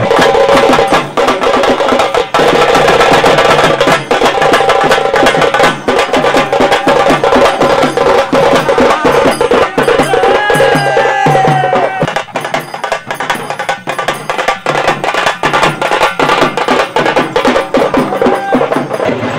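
Loud traditional procession music: dense, fast percussion strikes with a melodic line running over them.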